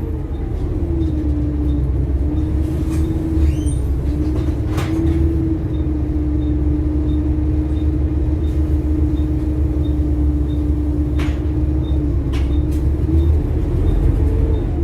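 Bus engine running while the bus is under way. Its steady note dips and rises a few times, over a low rumble, with a few short sharp rattles. The engine has a ticking noise that the uploader puts down to a failed exhaust manifold.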